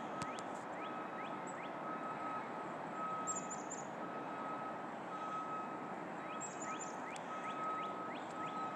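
Steady hum of distant car traffic, with a high beep repeating about once a second through it and scattered short rising chirps over the top.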